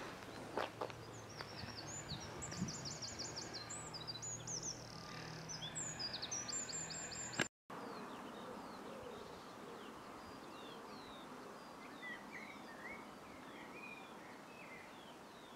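Songbirds singing over a quiet outdoor background: a rapid high twittering song through the first half, then fainter short whistled notes after a brief break in the sound.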